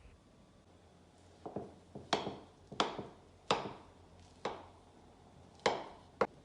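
A series of about seven sharp knocks or taps, unevenly spaced over about five seconds, each with a short ring.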